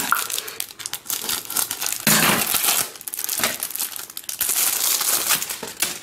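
Plastic packaging crinkling and rustling as a large plastic car plaster with a magnetic back is pulled out of its bag, with denser crackling about two seconds in and again near five seconds.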